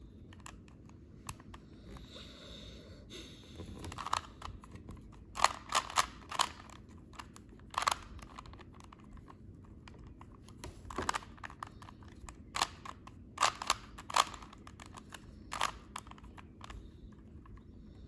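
A plastic Rubik's Cube being turned by hand: irregular clacks as its layers twist, coming in quick clusters with short pauses between.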